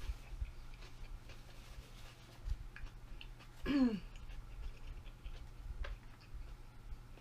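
Close-miked chewing of a rice-paper shrimp spring roll: faint wet mouth clicks and soft low thumps, with one short falling "mm" hum about three and a half seconds in.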